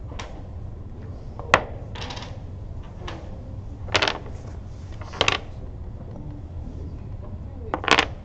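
Dominoes being laid down on a wooden table during a game of 42, each tile landing with a short, sharp clack. There are several clacks spread a second or more apart, the sharpest about one and a half seconds in.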